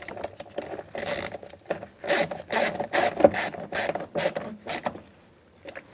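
A door-panel screw being turned in by hand with a screwdriver: a series of short rasping scrapes, about two a second, stopping about five seconds in.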